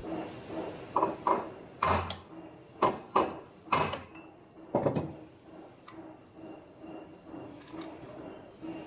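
Sharp knocks, about eight in all and several in quick pairs, as the zinc alloy connecting piece of a 3D hidden hinge is stamped in a strength test. After about five seconds only faint small knocks are left.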